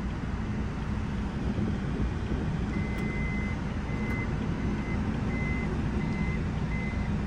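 Power sliding door of a 2018 Toyota Voxy closing by itself under a steady hum. About three seconds in, its warning beeper starts, one high-pitched tone repeating at roughly one and a half beeps a second.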